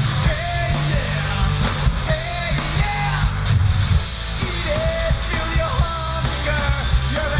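Live rock band playing loud, distorted punk-style rock, with a male vocalist singing and shouting into a microphone over guitars, bass and drums.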